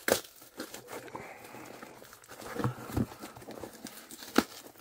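Cardboard box and its paper and plastic wrapping being torn and crumpled by hand: irregular rustling and crinkling broken by sharp rips and snaps, the loudest just after the start and again near the end.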